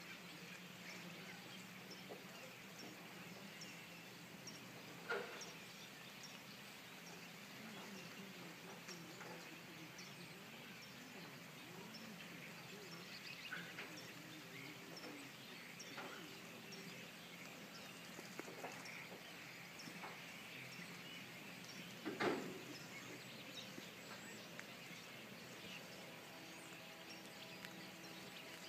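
A flock of starlings chattering faintly, a steady mix of many small chirps and clicks, with two brief louder rushes of noise about 5 s and 22 s in.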